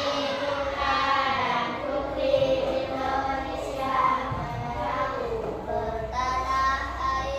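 A child singing a melody in held, gliding notes.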